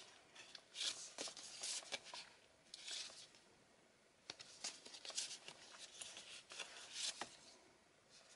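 Thick patterned paper envelopes rustling and sliding against each other as they are leafed through by hand: a series of soft, short swishes with a few light taps.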